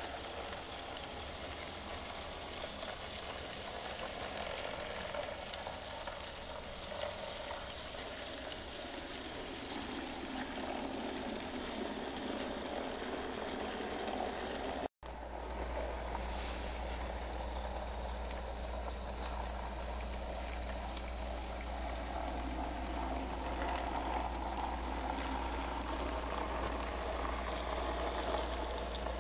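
Miniature Nn3 model train running: the tiny motors in the brass locomotives give a steady high whine that wavers slightly in pitch. The sound drops out for an instant about halfway through, and after that a steady low hum sits underneath.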